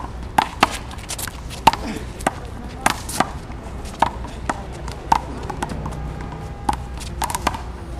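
One-wall handball rally: the small rubber ball (a 'big blue') smacking off players' hands, the concrete wall and the ground, about a dozen sharp slaps at uneven intervals.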